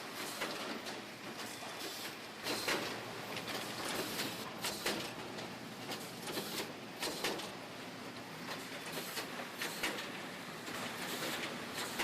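Bottle-filling line running: steady machine noise with irregular sharp clinks and knocks.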